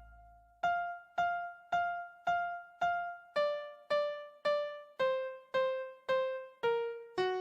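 Music: a single keyboard note played alone about twice a second, each note dying away before the next. It repeats on one pitch, then steps down lower and lower over the second half.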